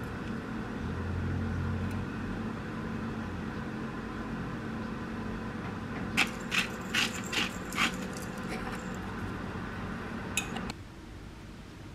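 Kitchen room hum, with a quick, even run of five or six sharp shakes about six seconds in, as a shaker of dried basil is shaken over a salad. There is one more click shortly before the hum cuts off near the end.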